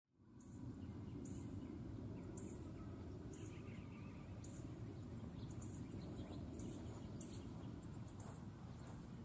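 Faint outdoor ambience: a steady low rumble of background noise, with a short high chirp from a bird or insect repeating about once a second.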